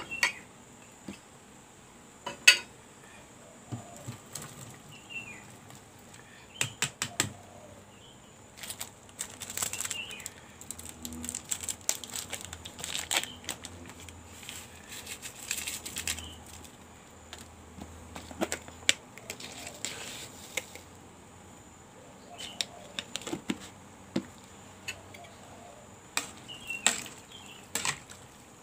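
Irregular clinks and knocks of a metal spoon against an aluminium cooking pot as vegetables are stirred, with busier clusters about a third of the way in and again near the end.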